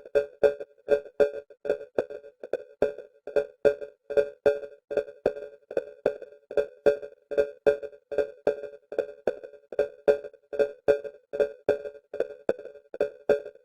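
Electronic music: a short synthesized note pulsing about four times a second in an even, unbroken rhythm.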